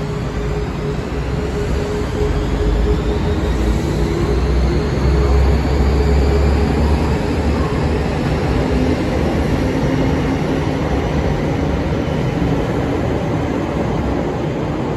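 Kintetsu 26000 series Sakura Liner electric express train pulling out and gathering speed: a heavy rumble of wheels and running gear as the cars pass close by, loudest a few seconds in, with a faint whine rising in pitch as it speeds up.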